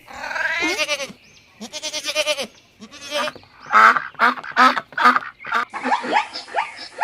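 Farm animals calling: a long wavering call in the first second, a few separate calls, then a run of short, rapidly repeated calls from about four seconds in.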